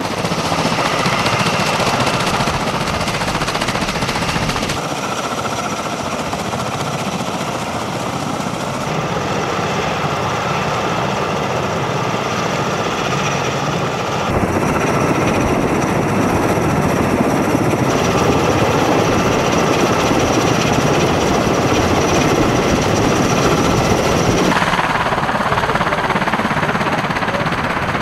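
Continuous loud drone of aircraft engines with a rapid pulsing beat, its tone changing abruptly several times.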